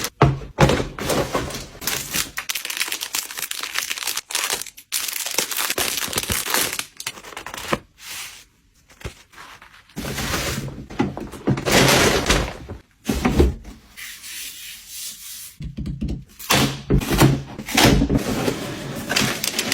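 Product packaging being handled and opened by hand: irregular rubbing, tearing and scraping of cardboard and plastic with sharp knocks, and a quieter lull about eight seconds in.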